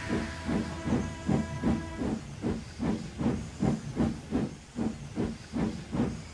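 Steam locomotive chuffing steadily as it moves off, about three exhaust beats a second over a hiss of steam, getting quieter near the end.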